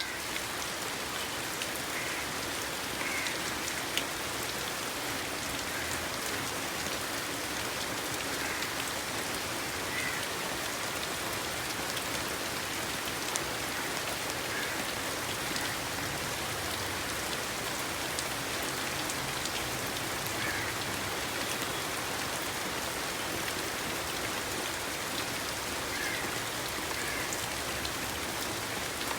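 Steady rain falling, an even hiss with a few sharper drop hits standing out.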